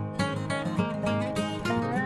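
Background music: plucked strings, like an acoustic guitar, picking a light melody note by note.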